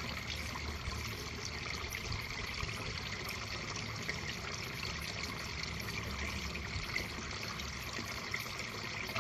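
Steady rushing background noise, like flowing water; the mini drill is not running.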